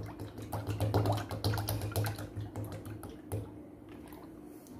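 Thick colostrum milk pouring from a plastic bottle into a steel bowl of milk, splashing and bubbling in irregular bursts over a steady low hum; the pouring thins out near the end.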